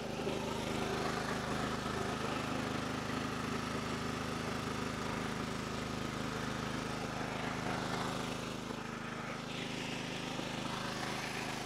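Small portable generator engines running steadily under a load of halogen work lights, a constant even drone.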